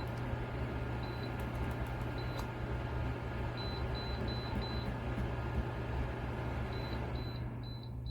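Dreo PTC ceramic space heater running with a steady fan rush and low hum, while its control panel gives short high beeps, single and in quick runs, as the temperature button is pressed up toward the highest setting. Near the end the fan's rush dies down and the beeps come faster, about three a second.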